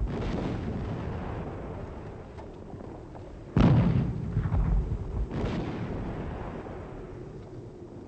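Heavy, deep booms over a low rolling rumble: the loudest hits suddenly about three and a half seconds in, a smaller one follows under two seconds later, and each dies away slowly.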